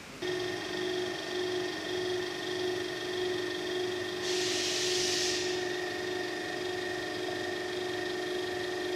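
Radial drill machine's electric motor switched on, starting abruptly and running with a steady hum-whine, with a brief hiss about four seconds in.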